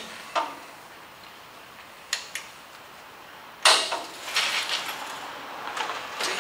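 Steel brackets and clamps being handled: a few sharp metallic clicks, then a louder clank about halfway through and a couple of seconds of rattling and scraping as the brackets are clamped back together.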